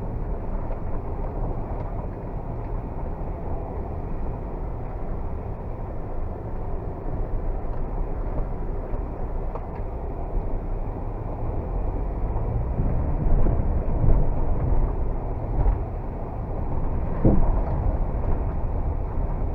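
Kia Carens II diesel minivan being driven: a steady engine and road hum, getting somewhat louder in the latter part.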